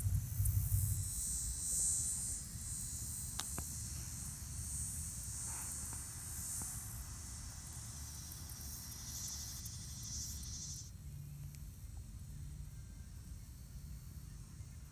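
A high-pitched insect chorus, cutting off suddenly about two-thirds of the way through, over a low rumble that is strongest at the start, with a couple of faint clicks.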